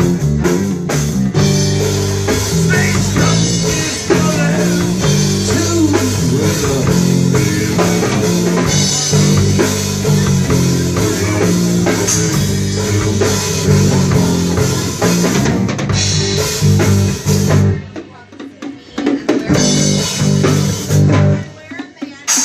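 Live band playing an instrumental passage on drum kit, bass guitar and guitar. The music drops out briefly twice near the end.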